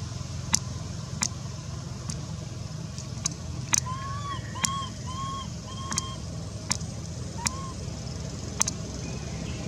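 Baby monkey giving short, arched squeaking cries, a quick run of four or five about four seconds in and single ones later, over a steady low rumble with sharp clicks scattered through.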